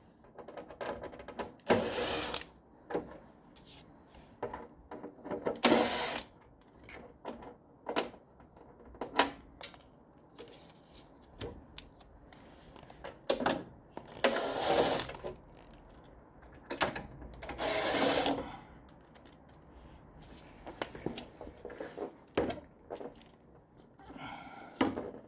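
Cordless driver spinning in short bursts, four main ones under a second each, backing out screws from a plastic shroud. Clicks and clatter of the tool and screws being handled come in between.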